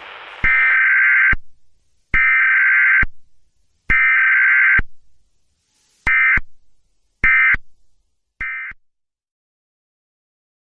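Emergency Alert System digital data bursts (SAME code) closing the alert: three buzzy, warbling tone bursts of about a second each, then three short bursts of about a third of a second, each switching on and off with a click. The short final trio is the pattern of the end-of-message code.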